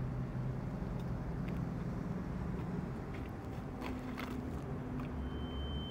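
Steady low vehicle rumble of a parking lot. About four seconds in, a few light knocks and clicks come from an SUV's rear liftgate being shut and latched. Near the end a steady high-pitched tone begins.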